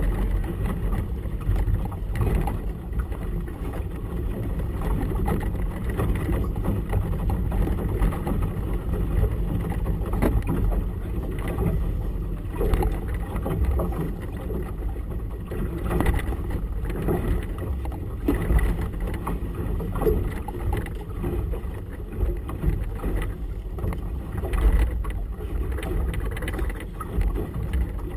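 Gusty wind buffeting the camera and choppy water slapping against a small boat's hull: a steady low rumble that swells and dips with the gusts.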